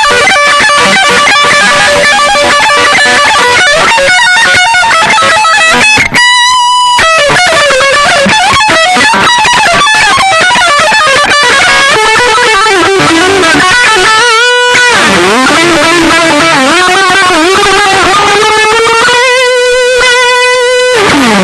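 Distorted electric guitar playing a fast heavy-metal solo: rapid note runs broken by held notes with vibrato, about six seconds in and again near fourteen seconds. A long vibrato note near the end ends in a downward slide.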